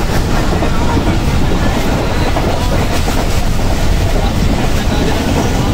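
Passenger train running along the track: steady loud rumble of its wheels on the rails, with faint irregular knocks, heard through an open coach window.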